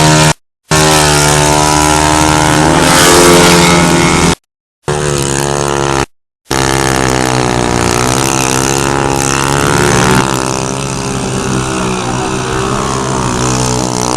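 Motorcycle engines running and revving, their pitch rising and falling with the throttle, in several short clips that cut off abruptly into brief silences near the start and about four and six seconds in.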